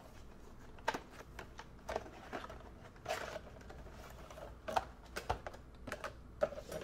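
A small cardboard box being opened and handled by hand: scattered light taps and clicks of the flaps and box against the bench, with a short rustle about three seconds in.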